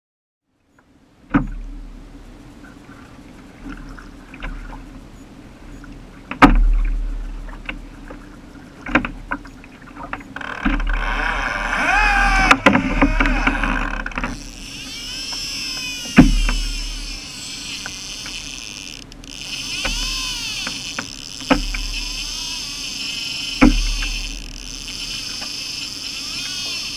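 Sea water sloshing and slapping against a fishing kayak's hull, heard close from the kayak itself, with sharp knocks every few seconds and a low rumble underneath. It starts about a second in, and the rushing, hissing water grows louder from about halfway.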